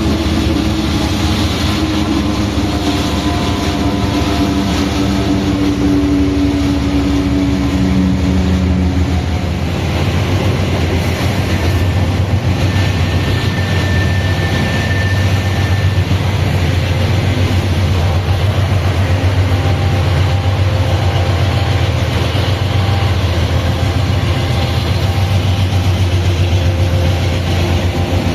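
A GE C44-9WM diesel-electric locomotive hauling a freight train, with its GE752AH traction motors running: a loud, steady heavy drone. A few steady tones sound over it for about the first nine seconds, then a deeper drone strengthens from about ten seconds in.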